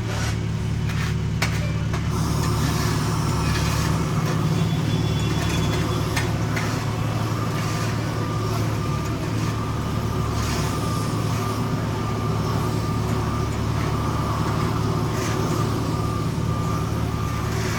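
Heavy paving equipment's diesel engine running steadily, with a few sharp knocks in the first two seconds and again around six seconds in.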